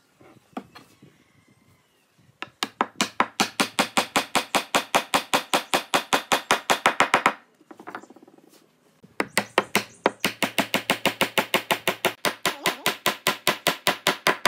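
Cordless impact driver running in two long bursts of rapid, even hammering, about seven or eight blows a second, each burst getting a little louder near its end as a screw is driven home into the pine frame.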